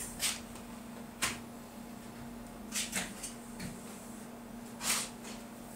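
Handling noises: a few short knocks and scrapes as a laptop is set down on a wooden counter and a bowling ball is turned on the scanner stand, over a faint steady hum.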